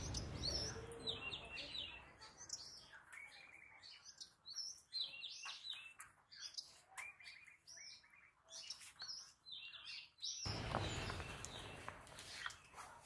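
Small birds chirping and calling, with many short chirps scattered throughout. A brief rush of noise comes at the very start and again about ten seconds in.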